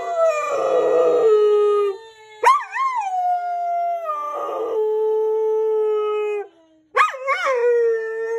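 Golden retriever howling with a toy held in its mouth: three long howls, each wavering at the start, then sliding down in pitch and holding, the second beginning about two and a half seconds in and the third about seven seconds in.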